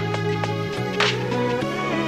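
Background music: sustained notes over a bass line that shifts pitch twice, with a drum hit about a second in.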